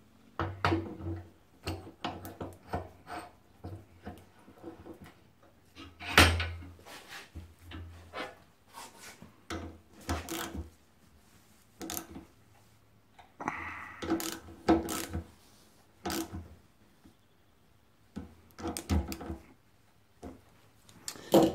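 Hand tools working on a motorcycle brake caliper: the caliper is clamped in a steel bench vise and the bolts joining its two halves are tightened with a ratchet. Scattered clicks and metallic knocks come in short clusters with pauses between them, the loudest knock about six seconds in.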